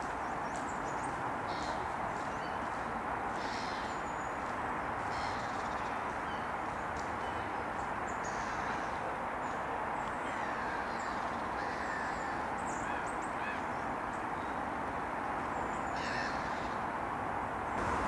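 Carrion crow cawing a few times, short harsh calls several seconds apart, over a steady background rush. Faint high chirps of small birds come through now and then.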